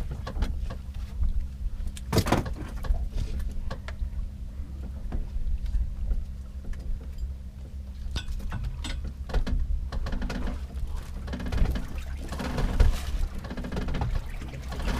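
Steady low hum of a fishing boat's engine, with scattered knocks and clicks of work on deck and one sharp knock about two seconds in.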